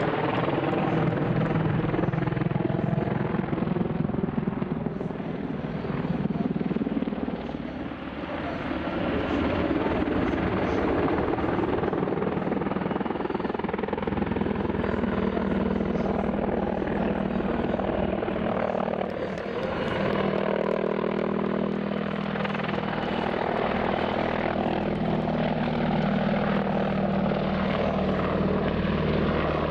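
Mi-28N attack helicopter flying past: its rotor blades and twin turboshaft engines make a steady drone with a layered hum, dipping briefly about eight seconds in.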